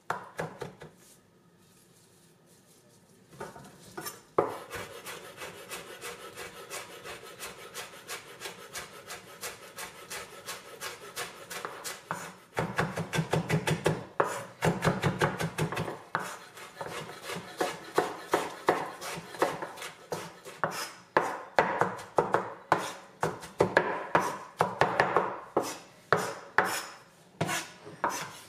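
Chef's knife rapidly chopping red pepper and parsley on a wooden cutting board: a fast, steady run of knocks that starts a few seconds in, after a short pause.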